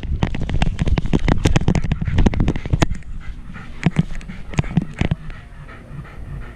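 Close, rapid knocking and rustling from a GoPro in a loose harness on a wire-haired fox terrier as the dog moves: dense for about the first three seconds, then a handful of louder separate knocks about four to five seconds in, over a low rumble.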